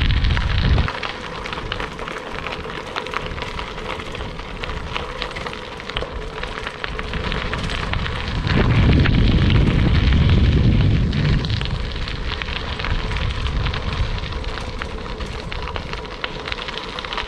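Bicycle tyres rolling over a gravel road, a steady dense crackle of small stones. A low rumble drops away about a second in and swells again between about eight and eleven seconds in.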